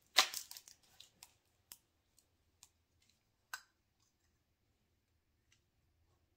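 Hand-handling of a homemade egg candler, a duct-taped flashlight and plastic humidifier cup: a short scraping rustle just after the start, then a few scattered light clicks and taps of plastic.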